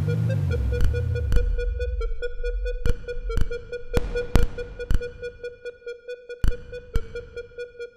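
Electronic laptop-ensemble music: a rapidly pulsing synthesizer tone with higher pulsed overtones, punctuated by scattered sharp clicks. The low bass drops away about a second in and the whole texture fades toward the end.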